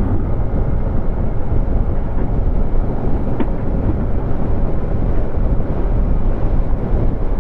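Wind rushing over the camera microphone on a moving Yamaha NMAX scooter, a steady dense noise with the scooter's engine and road noise underneath.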